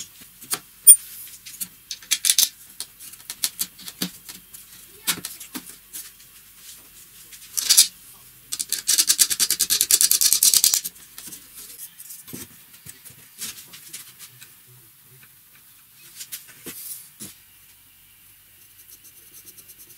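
Small clicks and knocks of a steel bolt, washer and nut being handled and fitted through wooden pieces, with a dense run of rapid ticking for about two seconds near the middle as the nut is spun along the bolt's threads.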